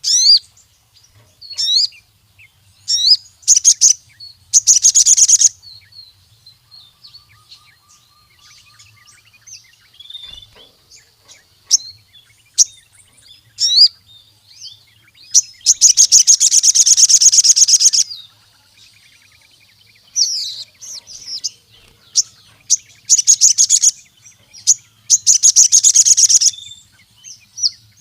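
Sogon sunbird calling: sharp, high chirps broken by several fast, rattling trills. The longest trill lasts about two seconds, near the middle.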